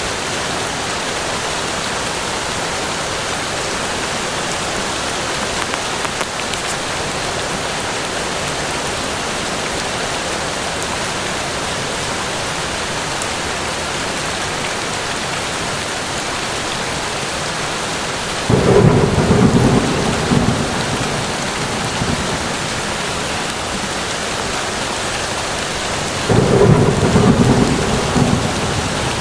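Steady rain falling in a forest, with two sudden low rumbles of thunder, each lasting two or three seconds, about two-thirds of the way in and again near the end.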